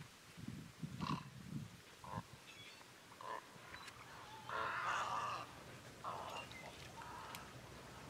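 Great egrets giving harsh, low croaking calls: a few short grunts in the first two seconds, then a longer, harsher croak about halfway through.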